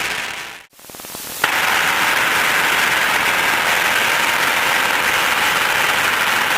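Steady engine and propeller noise inside the cabin of a Just Aircraft SuperSTOL, heard as an even hiss. It fades out almost to nothing in the first second and comes back suddenly about a second and a half in.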